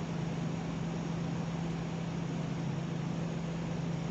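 Steady machine hum with an even hiss, like a room fan or air conditioner running, holding constant throughout with no separate sounds standing out.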